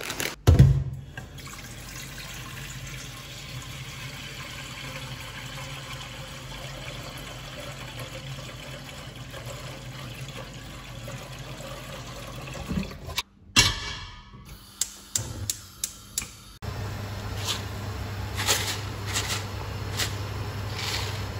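Kitchen tap running into a stainless steel pot in the sink, filling it with water, after a loud thump about half a second in. Near the end a steady low hum sounds at the stove, with a few light clicks and taps as salt is poured into the pot.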